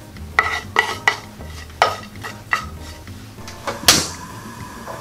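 Wooden spatula knocking and scraping against a wooden cutting board as chopped chillies and scallions are pushed off into an earthenware pot: about six sharp wooden knocks, the loudest near the end.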